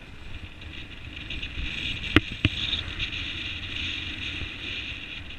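Riding noise from a bicycle on a city street: steady low rumble with a high hiss over it, and two sharp knocks about a third of a second apart, a little past two seconds in.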